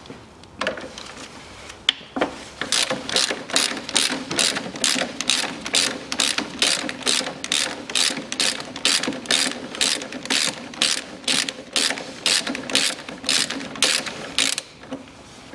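Ratchet wrench with a 19 mm socket on an extension, clicking steadily, roughly two to three clicks a second, as it is worked back and forth to undo the central bolt of the timing-side engine mount. A single sharp click comes about two seconds in, before the run of clicks starts.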